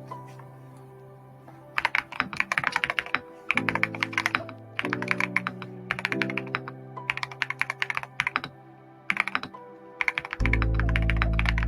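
Typing on a custom GMK67 mechanical keyboard fitted with KTT Kang White linear switches and XDA-profile PBT keycaps: quick runs of keystrokes in bursts with short pauses between them. Background music plays underneath, its bass coming in louder near the end.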